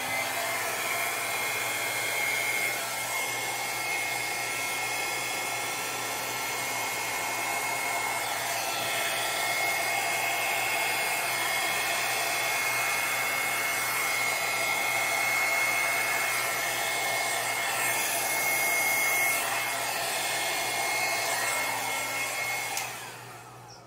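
Hand-held electric air blower running steadily, a rush of air with a high whine, blowing wet acrylic paint down across a panel in a Dutch pour. It switches off about a second before the end.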